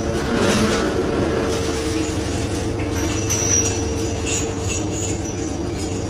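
Steady machinery drone on the deck of a scallop dredger, a constant low hum with a steady tone over it, mixed with scallop shells clattering and scraping as the crew rakes the catch. Short high squeals come in from about three seconds in.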